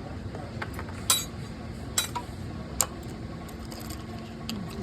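Three sharp metallic clinks over a steady low hum.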